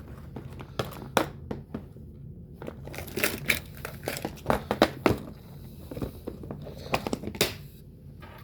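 Small plastic packaging bag crinkling as a metal fishing lure is pulled out of it and handled, with scattered short clicks and taps at irregular moments.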